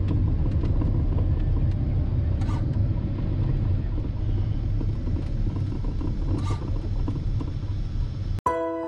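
Cessna 210's six-cylinder engine running, heard inside the cockpit as a steady low rumble while the plane rolls on the ground. The rumble cuts off abruptly near the end and soft piano music begins.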